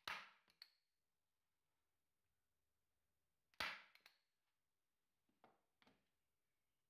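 Hand staple gun firing twice, about three and a half seconds apart, driving staples through felt into a wooden board; each shot is a sharp snap followed by a lighter click or two. Two fainter clicks come near the end.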